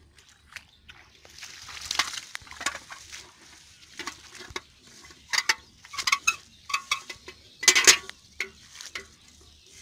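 Handling of a wet mesh fishing net on grass: irregular rustling and crackling, then clusters of sharp clicks and slaps in the second half, loudest about eight seconds in, as fish are grabbed out of the net by hand.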